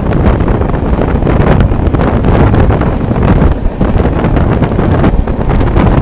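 Loud wind buffeting the microphone held out of a moving passenger train. Underneath is the rumble of the coaches running on the rails, with scattered clicks.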